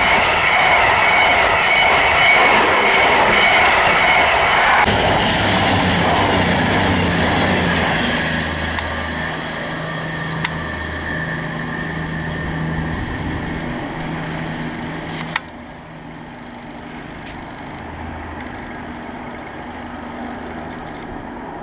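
A High Speed Train's coaches rush past close by with loud wheel-and-rail noise and a steady high whine, easing off after about five seconds. Then comes the low engine hum of a CrossCountry Voyager diesel unit, swelling and fading, which drops suddenly about two-thirds of the way through and carries on fainter.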